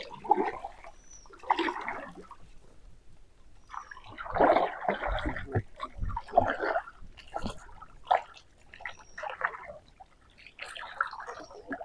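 Paddle strokes in pond water, splashing and gurgling in irregular bursts every second or two.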